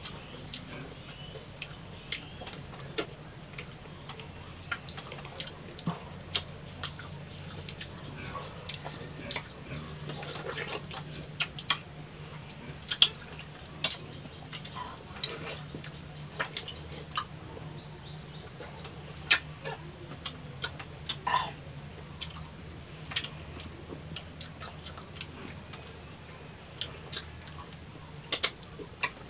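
Mouth noises of eating santol fruit: irregular wet smacks, sucks and sharp little clicks as the pulp is eaten off the seeds, over a low steady hum.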